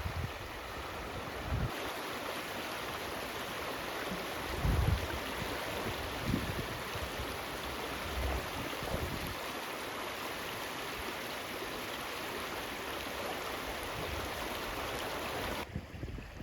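Steady rush of flowing water, with gusts of wind buffeting the microphone several times. Near the end the rushing cuts off abruptly.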